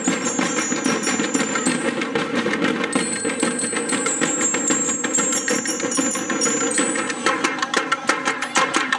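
Percussion-driven dance music: fast, dense drumming with clicking wood-block-like strokes, over high bell-like ringing tones that step downward in pitch.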